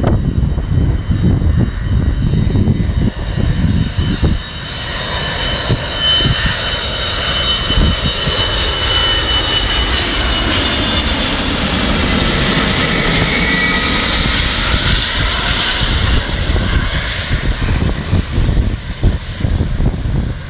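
Antonov An-225 Mriya's six turbofan engines on landing approach: a high whine that grows louder as the aircraft passes low overhead, loudest about two-thirds of the way through, dropping in pitch as it goes past and then fading as it moves away.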